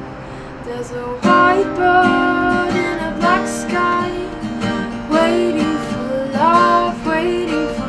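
Acoustic guitar strummed in a song's wordless passage. It is softer for about the first second, then comes in strongly with full chords.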